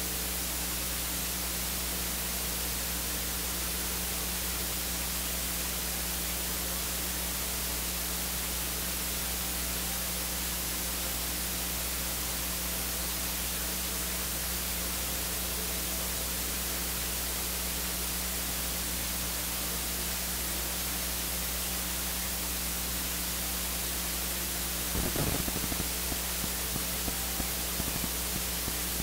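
Steady electrical hiss with a low mains hum from the sound feed. Near the end comes a brief crackle, then a few faint ticks.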